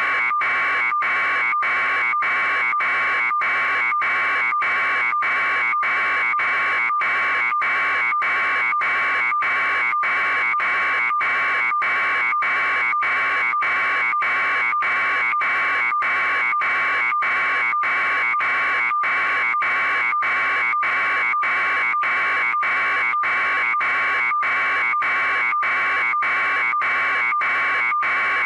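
A loud, steady electronic buzz that pulses about one and a half times a second.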